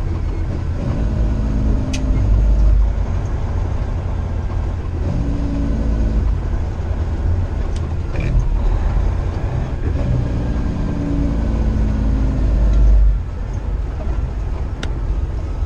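Semi truck's cab interior on the highway: steady low engine and road rumble with an engine drone that comes and goes, and a few faint clicks. The rumble drops a little near the end.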